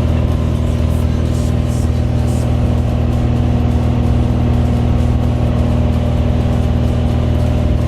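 Steady drone of a Cessna 182's piston engine and propeller heard from inside the cabin during the climb to jump altitude, an even hum with a strong low rumble.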